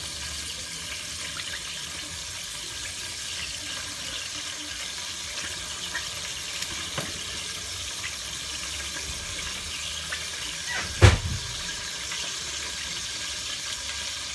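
Veal, garlic and rosemary frying in oil in a stainless steel pot: a steady sizzle with faint crackles. A single sharp knock about eleven seconds in.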